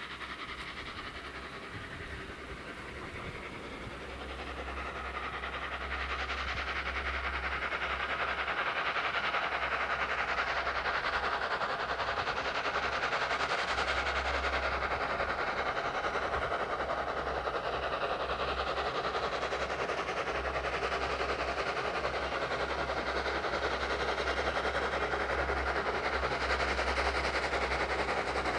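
Two steam locomotives, a J27 0-6-0 and a Cockerill vertical-boiler tram engine, working a three-coach train on the approach, the sound of the train growing louder over the first few seconds and then holding steady as it nears.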